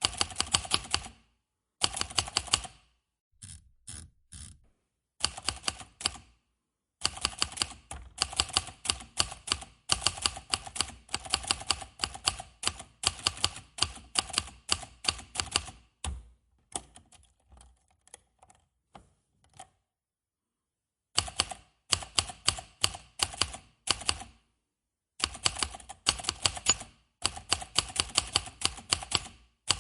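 Manual typewriter being typed on: runs of sharp keystroke clacks, several a second, broken by short pauses. About two thirds of the way in the clacks turn faint for a few seconds and stop briefly before the typing picks up again.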